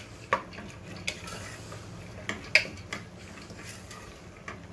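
Wooden spatula stirring soaked chana dal and fried onions in a pressure cooker, with scattered knocks and scrapes against the pot. The loudest knock comes about two and a half seconds in.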